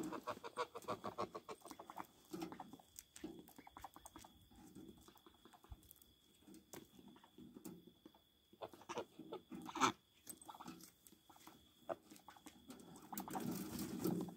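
Chickens, ducks and geese in a coop calling softly, with one louder squawk about ten seconds in. Near the end a burst of wing flapping.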